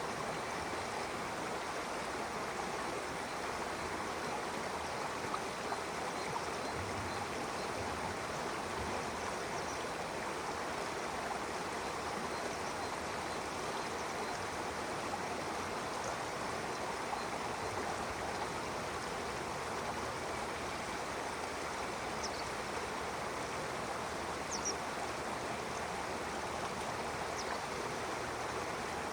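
A stream flowing steadily, a continuous rushing and burbling of water. A few brief, high bird chirps sound over it in the second half.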